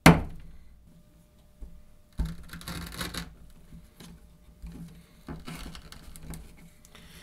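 Harnds Beak folding knife striking down onto a wooden cutting board at the very start, then cutting through natural-fibre rope: a knock about two seconds in followed by about a second of fibrous rasping, then lighter knocks and scraping strokes of the blade against the rope and board.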